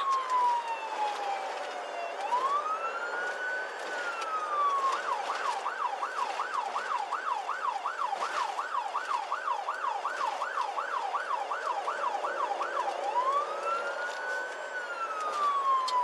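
Police car siren heard from inside the patrol car. It sounds a slow rising-and-falling wail, switches about five seconds in to a fast yelp of about three cycles a second, and returns to the wail about thirteen seconds in.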